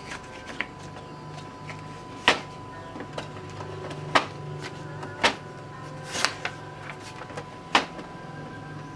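Epson inkjet printer working: a low steady motor hum sets in about a second in, broken by about five sharp mechanical clicks and clunks from the print mechanism.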